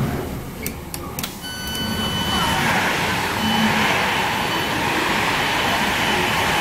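Class 319 electric train's passenger door being opened: a few clicks as the door-open button is pressed, then a beep, then a loud hiss of air as the sliding door opens, the hiss going on for several seconds.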